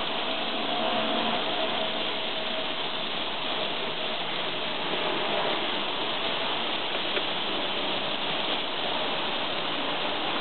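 Chicken pieces sizzling on hot grill grates: a steady hiss.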